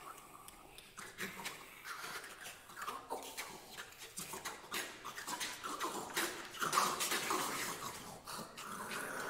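Six singers performing contemporary vocal music in extended techniques: scattered clicks and breathy, hissing noises mixed with short pitched vocal sounds, growing busier about halfway through.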